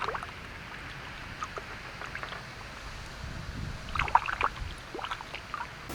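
Scattered light water splashes and handling knocks around a small, freshly landed carp at the water's edge, with small clusters about a second and a half in, two seconds in, and around four seconds in.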